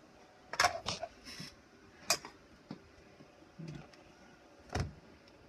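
A few short, sharp clicks, spaced irregularly, with low hiss between them.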